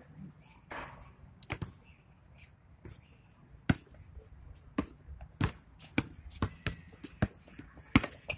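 Basketball bouncing on an outdoor hard court as it is dribbled: scattered single bounces at first, then a steady bounce a little under twice a second through the second half.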